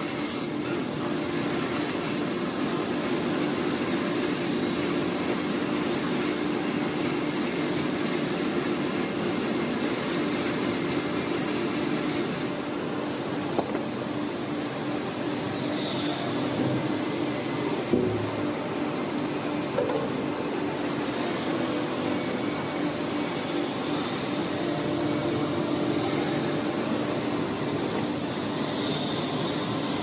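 Kärcher IVR-L 65/12-1 Tc industrial wet-and-dry vacuum cleaner running steadily: a constant rush of air with a steady hum, broken by a few brief knocks.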